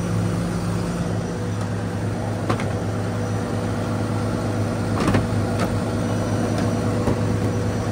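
Cummins diesel engine of a medium-duty International truck idling steadily, heard from inside the cab. A few short knocks about two and a half and five seconds in come from a hand on the plastic dash panel.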